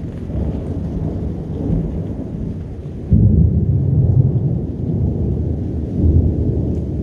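Thunder rumbling low and long, with a sudden louder peal about three seconds in and another swell near the end.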